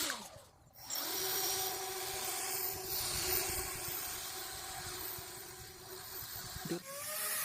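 Small 1800kv brushless motor spinning the RC boat's air fans, a steady whine that drops out briefly about half a second in, then rises sharply in pitch near the end as the throttle is opened.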